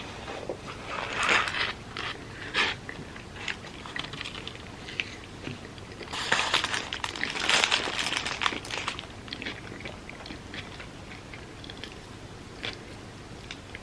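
Close-miked eating: crunchy bites and wet chewing of food. There are loud bites about a second in and a longer, louder stretch of crunching from about six to nine seconds, with quieter chewing clicks between.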